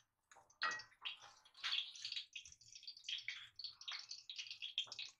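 Ghee melting in a hot stainless steel kadhai, sizzling faintly with quick, irregular crackles and pops.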